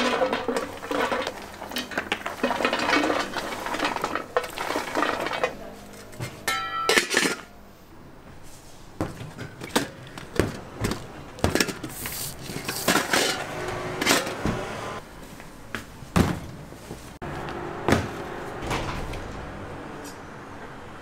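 Toasted walnut pieces poured and brushed off a metal baking tray into a stainless steel pan, rattling for about the first five seconds. Then stainless steel pans clanking and knocking in separate strokes as they are handled and stacked on a steel counter.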